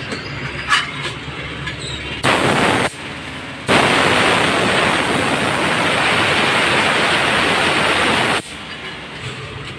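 Compressed air blowing from an air hose nozzle inside a dismounted car tyre: a short blast a little over two seconds in, then a longer one of about four and a half seconds, each starting and stopping sharply.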